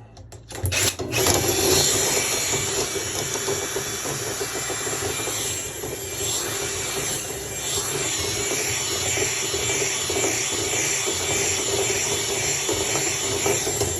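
Vacuum motor running steadily as it pulls lint out of a dryer vent packed full, starting about a second in and cutting off sharply at the end.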